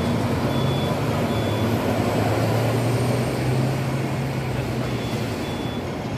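Street traffic: a vehicle engine hums louder for a few seconds and then fades, over steady road noise. Short high beeps repeat now and then.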